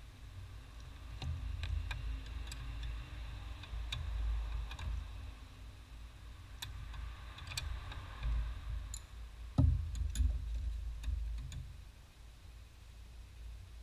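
Scattered light metallic clicks and taps of an open-end wrench being fitted to and worked on a brake line fitting at the master cylinder, with one sharper knock about ten seconds in, over a low steady rumble.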